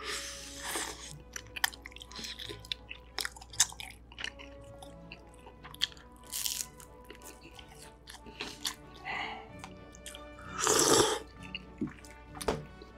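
Close-miked eating sounds: biting and chewing chewy rice cakes in sauce, with many small wet mouth clicks, and a crunchy bite into a fried seaweed roll about six and a half seconds in. About eleven seconds in comes the loudest sound, a longer noisy mouth sound. Faint background music plays under it.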